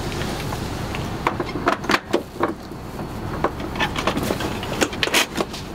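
Irregular metallic clicks and knocks of a wheelchair tie-down retractor being fitted into the vehicle's floor track and hooked onto the wheelchair, over a steady low hum.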